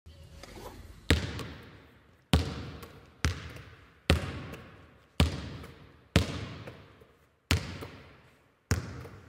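Eight sharp impact hits, roughly one a second, each fading away in a long echoing tail, laid over an animated title intro as sound effects.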